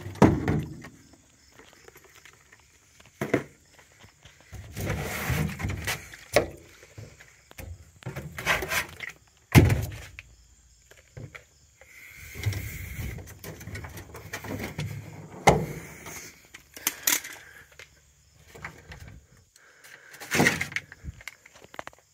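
Items being handled and moved about in a car trunk: irregular clunks and knocks, the sharpest near the start, about halfway and about two-thirds through, with stretches of rustling and scraping between them.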